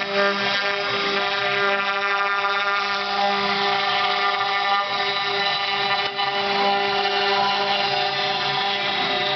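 CNC milling machine running, with a steady, even motor whine.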